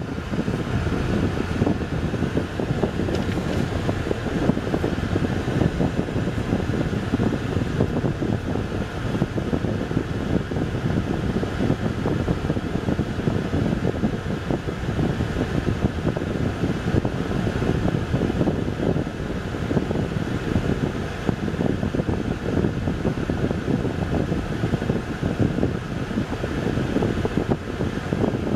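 Steady cabin noise in a car driving slowly along a rough country road: a low rumble of tyres and engine with a constant, even rush over it.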